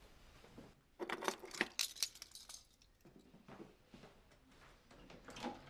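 A bunch of keys jangling: a quick run of light metallic clinks lasting a second and a half, then a few faint ticks and a soft knock near the end.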